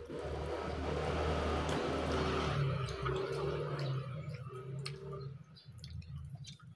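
Close-up wet mouth sounds of eating creamy spaghetti carbonara: chewing and slurping, loud and dense for about four seconds, then fading to softer scattered smacks and clicks.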